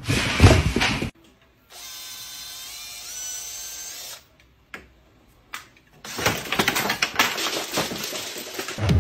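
A cordless drill running for a couple of seconds, its whine rising in pitch partway through. It sits between louder, noisy, irregular stretches at the start and over the last three seconds.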